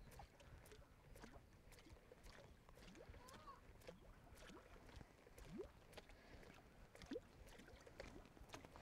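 Near silence: faint water sounds on a lake, with scattered soft ticks and two short rising chirps in the second half.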